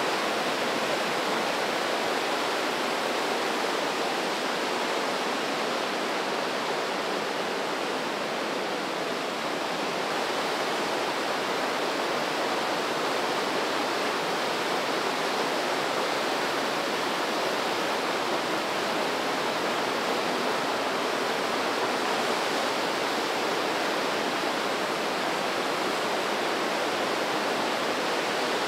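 Fast-flowing Breitach mountain river rushing through a rocky gorge: a steady, unbroken roar of water.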